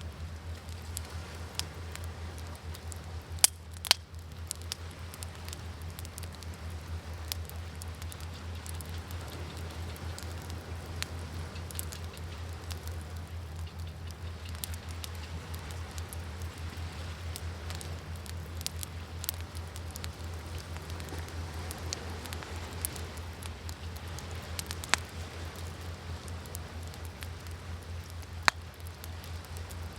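Wood fire crackling steadily with scattered sharp pops, two louder ones close together a few seconds in and a couple more near the end, over a steady low rumble.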